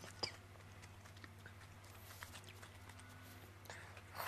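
Close-miked eating sounds: faint chewing and small mouth clicks, a sharp click of wooden chopsticks against the bowl a moment after the start, and a noisy slurp of wide oil-splashed noodles (youpo mian) at the very end, over a low steady hum.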